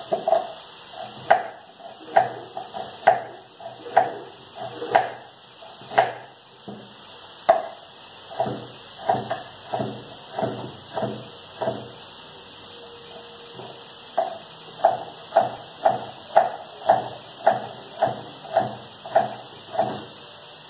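Kitchen knife chopping potato on a wooden cutting board: a run of sharp knocks about one to two a second, a short pause a little past the middle, then a quicker, even run of chops to dice it. A steady faint hiss lies underneath.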